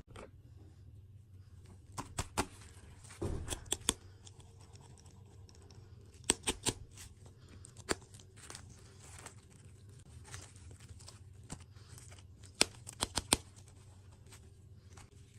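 Sharp crackling clicks in a few short clusters, with fainter crinkling between them, from sweets and their packaging being handled close to the microphone.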